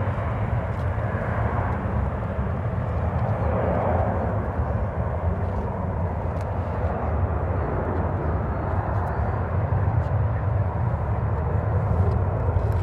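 Airliner jet engines heard as a steady low rumble with a broad roar above it, with no clear rise or fall.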